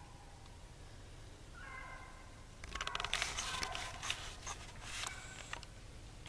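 Hunting hounds baying in the distance on a swamp rabbit's trail, one drawn-out bawl near the start. Dry brush and leaves then crackle and snap loudly for about three seconds as someone pushes through the thicket.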